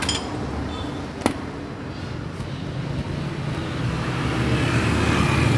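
Road traffic rumbling steadily, swelling louder toward the end, with one sharp click about a second in.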